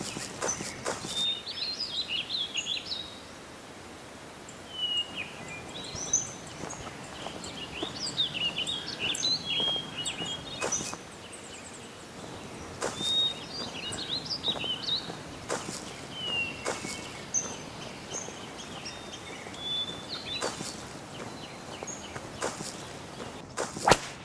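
Birds chirping over a steady outdoor background hiss, with scattered knocks: a quick run of them in the first three seconds and a sharp, loud one just before the end.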